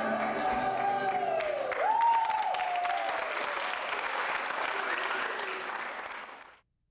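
A choir's last sung notes giving way to audience applause, with one voice sliding sharply up and down about two seconds in. The clapping carries on, eases slightly and cuts off suddenly near the end.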